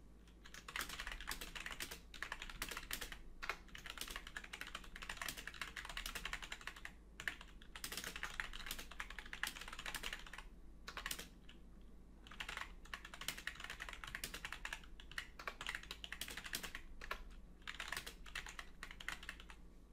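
Typing on a computer keyboard, faint: quick runs of key clicks starting about a second in, broken by short pauses.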